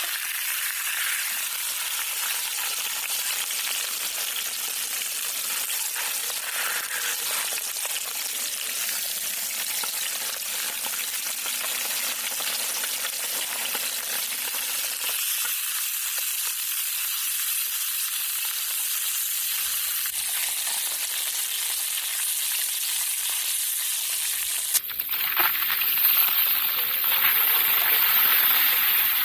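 Gurame fish frying in hot oil, a steady sizzle. About 25 seconds in it changes abruptly to a louder, different hiss.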